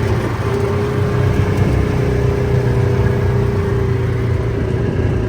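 Engine of a small off-road vehicle running at a steady speed while driving, a constant hum over a rushing noise.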